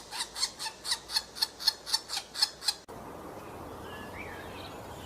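A woodpecker giving a rapid, evenly spaced series of sharp call notes, about four or five a second, which cut off abruptly about three seconds in. After that, a steady outdoor background hiss with a few faint bird chirps.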